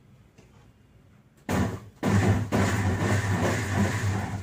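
Electric mixer grinder running: a short burst about a second and a half in, then after a brief stop a longer steady run with a low motor hum, grinding the soup ingredients.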